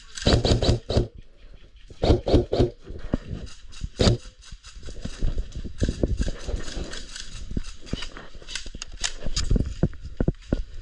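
Footsteps on the ground with gear scuffing and knocking, close to a body-worn camera: a run of irregular short knocks and scuffs. The loudest rough patches come about a second in and again around two to three seconds.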